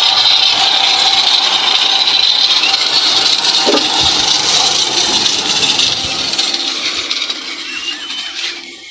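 A tube-well engine being spun over through a belt from a bicycle wheel, its pulleys and belt making a steady mechanical running noise with some rattle. The noise fades steadily over the last three seconds as the rig winds down.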